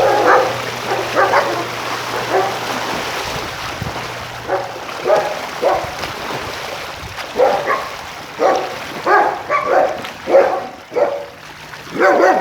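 Dogs barking, a few barks at first and then a steady string of short barks, about one or two a second, through the second half.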